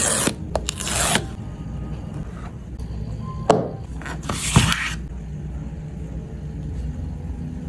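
Paper tear strip ripping off the seal of an iPhone 15 Pro Max box in the first second. A couple of light knocks and a short rustle follow around the middle, as the phone is lifted out of its cardboard tray. A low steady rumble runs underneath.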